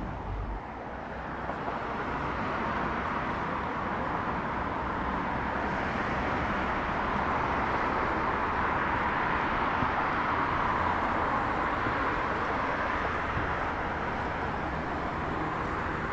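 Outdoor ambience of a rainy street: a steady wide hiss that swells through the middle and eases off again, with a faint steady hum.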